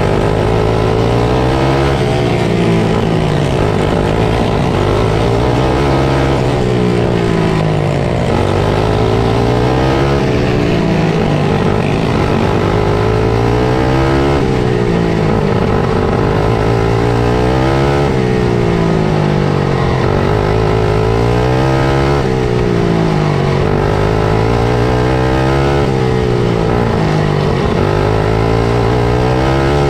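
Four-stroke dirt kart engine heard on board, revving up and dropping back in a regular cycle every three to four seconds as it lapses through the corners and straights of a short oval.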